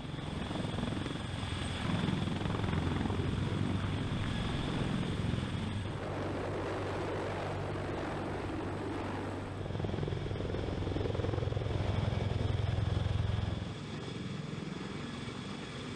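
Sikorsky CH-53K King Stallion heavy-lift helicopter in flight: a steady, rapid beat from the rotor blades over a low rumble, with a thin high whine above. The loudness shifts a couple of times and drops off about three-quarters of the way through.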